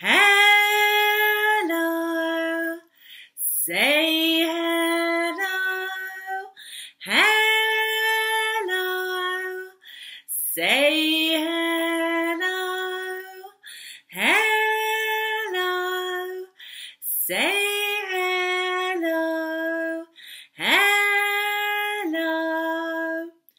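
A woman singing a children's hello song without accompaniment. She sings 'hello' over and over, about seven times, each time sliding up onto a held high note and then stepping down to a lower one.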